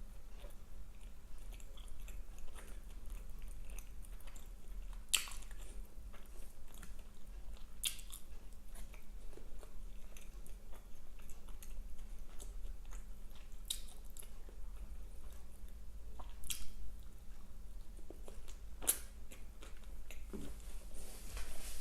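Close-miked chewing and biting of fast food, wet mouth sounds with occasional sharp crunchy clicks.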